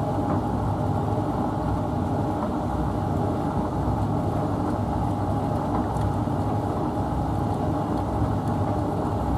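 A washing machine and tumble dryer running together: a steady mechanical hum with a constant low rumble and no change in pitch or speed.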